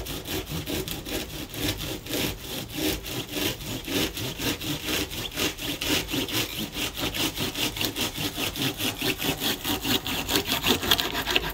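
A serrated knife sawing back and forth through a tight bundle of dried broom corn stalks, trimming off the excess end of a broom's handle: a steady run of rasping strokes, about four a second, that stops abruptly near the end.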